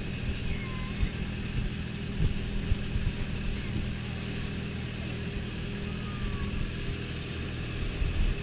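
Passenger boat's engine running steadily under way, a constant low drone with an even rush of noise over it.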